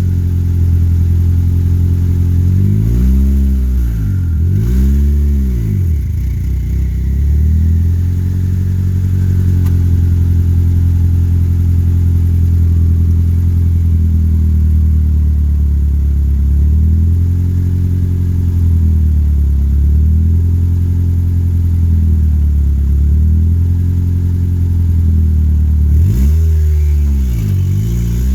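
Turbocharged Honda Civic D16Z6 1.6-litre four-cylinder engine running while driving, mostly at a steady speed. Its revs dip and climb back a few times, around three to five seconds in and again near the end.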